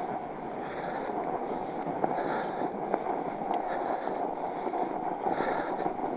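Northrock XC00 fat-tire bike riding through fresh snow: a steady noise from the wide tyres rolling and crunching in the snow, swelling about every second and a half, with a few sharp clicks.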